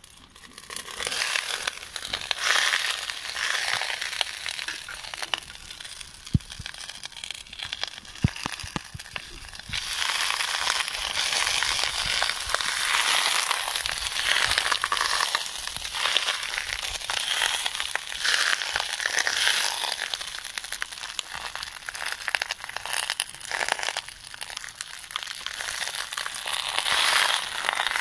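Crunchy rustling and scraping as a steel bowl scoops and presses a moist, crumbly rice mixture into a pot lined with banana leaves, the leaves crinkling, with a few sharp clicks of metal.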